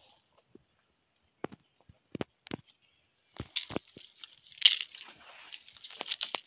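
Leaves and twigs of a forest shrub rustling and crackling as they are grasped and pulled by hand close to the microphone: a few scattered clicks at first, then dense rustling with sharp snaps from about three and a half seconds in.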